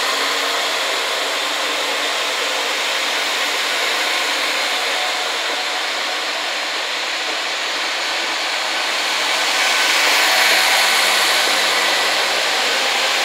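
JNR KiHa 40-series diesel multiple unit rolling slowly along a station platform as it pulls in: a steady rush of diesel engine and running noise, swelling a little about ten seconds in.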